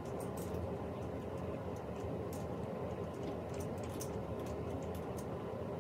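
Clothes hangers clicking against a closet rod and each other as hanging garments are sorted: irregular light clicks over a steady low room hum.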